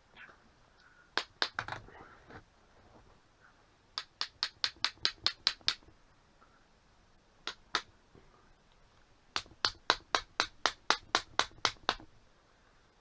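Runs of sharp, evenly spaced clicks, about five a second, in three bursts, with a pair of single clicks in between.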